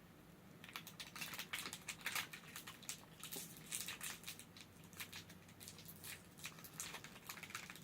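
Plastic candy wrapper crinkling as it is handled and opened, a quick irregular rustle of small crackles starting about a second in.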